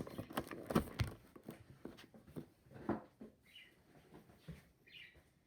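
Action figure's cardboard box and plastic packaging being opened by hand: irregular clicks, scrapes and rustles with a few sharper knocks, and a couple of short high squeaks of plastic near the end.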